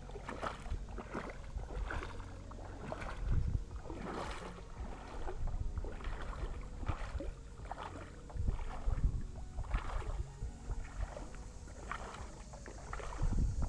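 Creek water sloshing and splashing in irregular strokes, like legs wading through a shallow creek, with a few low rumbles of bumping on the camera.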